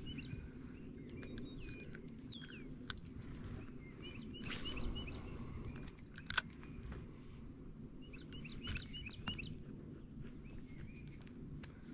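Small songbirds chirping in short bursts of quick repeated notes, several times over, above a steady low background rumble; two sharp clicks come about three and six seconds in.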